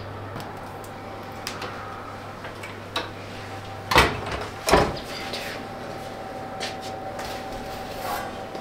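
Whirlpool built-in oven door being handled, with two sharp knocks about four seconds in, less than a second apart, and lighter clicks and rattles around them.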